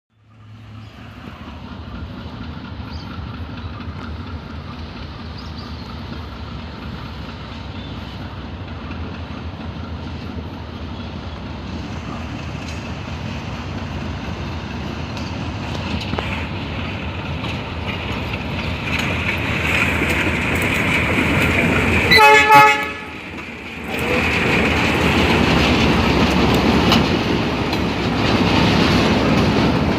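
GE U20C diesel-electric locomotive hauling an empty ballast train, its engine and the rolling wagons growing steadily louder. The locomotive gives one short horn blast a little over twenty seconds in.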